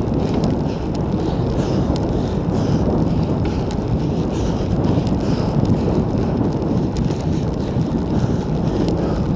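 Wind buffeting the microphone of a handlebar-mounted camera on a bicycle moving at about 30 km/h, a steady low rumble mixed with tyre noise on a concrete road. Faint scattered ticks sound above it.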